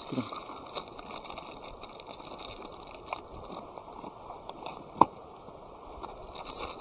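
Steady rush of a river, with scattered small clicks and knocks and one sharp click about five seconds in.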